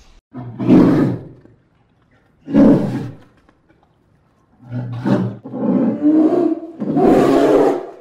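Bear roaring: five loud, rough roars. The last three come almost back to back.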